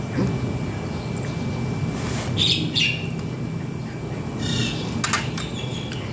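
Close-up eating sounds from instant-noodle salad: wet slurps and lip smacks in short bursts, the loudest about two seconds in and again around five seconds in.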